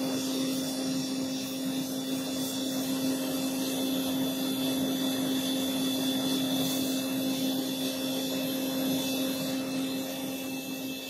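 The air blower on a homemade metal-melting furnace running steadily: a constant motor hum under a rush of air. It fades away near the end.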